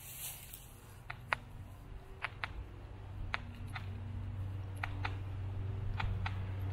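Young great horned owl snapping its bill: sharp clicks, several in quick pairs, repeated every second or so, a defensive warning at someone too close.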